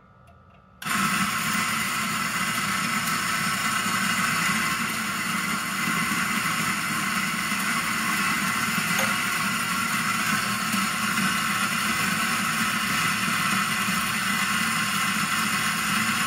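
Electric espresso grinder grinding coffee beans straight into a portafilter. The motor starts about a second in and runs steadily without a break.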